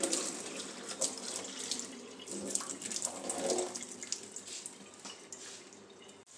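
Kitchen tap running, water splashing into a cup. It starts abruptly and cuts off sharply near the end.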